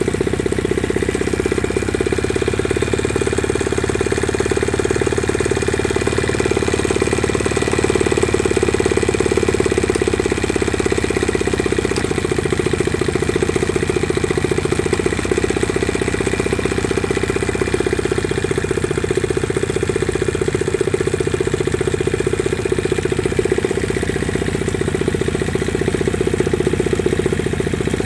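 Evinrude E15RCDE 15 hp short-shaft two-stroke outboard motor running steadily out of the water, with an even rapid firing pulse.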